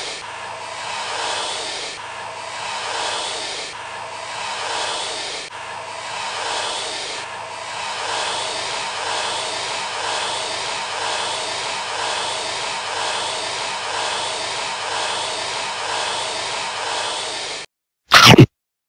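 A snake hissing sound effect: a steady hiss that swells and eases about every second and a half to two seconds, then cuts off suddenly. Near the end comes one very loud, short burst.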